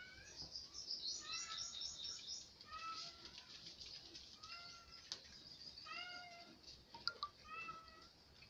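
Domestic cat meowing again and again, about five short pitched meows roughly one and a half seconds apart. A couple of sharp clicks fall between them.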